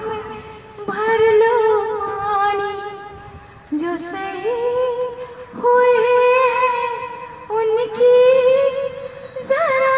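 A woman singing solo without accompaniment, in long held phrases with a wavering vibrato and short breaths between them.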